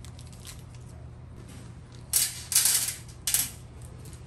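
A handful of loose metal screws clinking and rattling together in three short bursts, between about two and three and a half seconds in, over a faint steady low hum.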